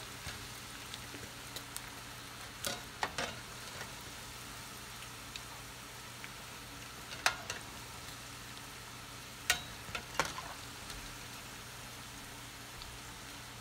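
Battered bun-and-cheese balls deep-frying in a pot of oil, a steady sizzle over a low hum, with a few sharp clinks of a metal slotted spoon against the pot as the balls are lifted and turned.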